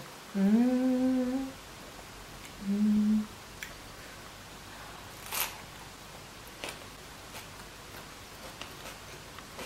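A woman's closed-mouth "mmm" hum, a slightly rising one of about a second and then a short one, followed by faint scattered clicks of her eating a rice-paper spring roll.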